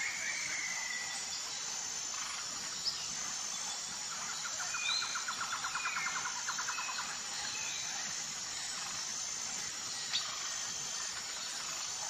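Outdoor bird ambience: scattered short bird chirps and a rapid trill of about ten notes a second lasting a few seconds, over a steady high insect hiss. Two sharp clicks stand out, one early and one near the end.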